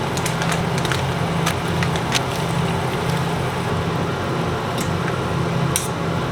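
Steady low mechanical hum, as of a fan running, with a few faint scattered clicks.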